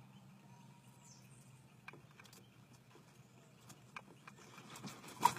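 Faint scattered clicks, then a cluster of louder knocks and rustling near the end.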